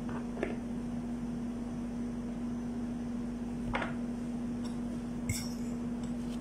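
Steady machine hum with a held tone and a background hiss, from a kitchen appliance or fan. Over it come a few brief soft taps and rustles as gloved hands handle pita bread and the plastic around it.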